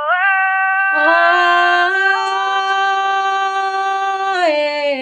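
A woman singing khắp, the Thái folk song of northwest Vietnam, on one long held note that steps up in pitch at the start and again about a second in, then falls away near the end.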